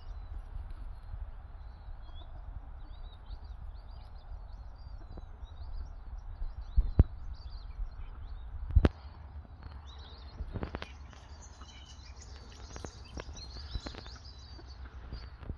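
Small birds chirping and twittering over a steady low rumble. Two sharp knocks come about seven and nine seconds in.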